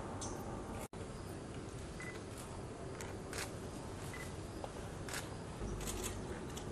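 Hushed open-air gathering standing in silence, broken by about a dozen scattered sharp clicks of camera shutters and two short faint beeps; the sound cuts out for an instant about a second in.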